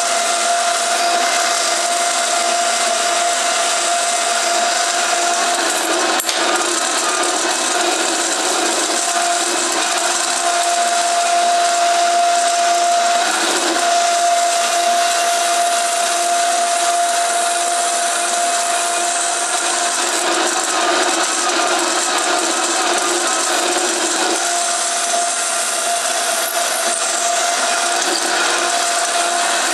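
Power saw with a narrow vertical blade running steadily and cutting a slot in an aluminium plate: a constant motor whine over a hissing rasp of blade on metal, the whine dipping briefly a few times as the cut is worked.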